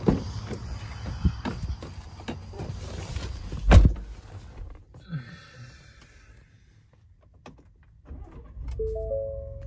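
Ford F-150 pickup door unlatched and opened, a few clicks and rustles of someone climbing into the cab, then the door shut with a heavy thump just under four seconds in. Near the end a low rumble sets in and a three-note chime sounds.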